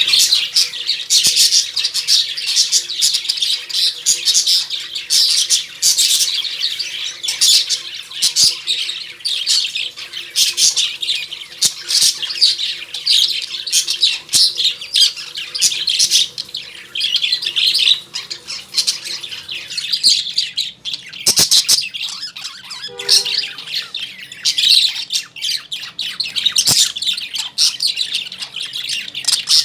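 A flock of caged lovebirds chirping and squawking in a dense, nonstop chatter of shrill, high calls. Two sharp clicks come in the second half.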